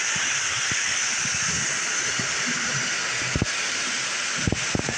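Toy electric train running on three-rail tinplate track, a steady hiss of wheels and motor with a few sharp clicks near the end.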